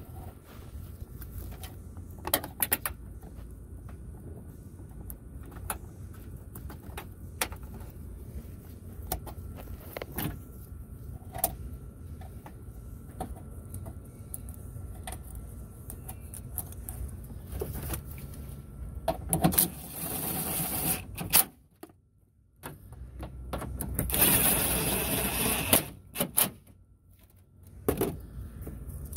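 Plastic washer fluid reservoir and its mounting hardware being handled and set onto a fender stud: scattered clicks and knocks. Near the end come two louder stretches of a small power tool running, about a second and two seconds long, as the mounting nut is driven down.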